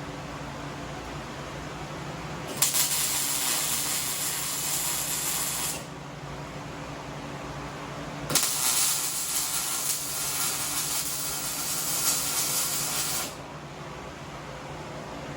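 Arc welding in two bursts, a hissing, crackling arc lasting about three seconds and then about five, as motor mounts are tack-welded onto a race-car chassis. A steady low hum runs underneath.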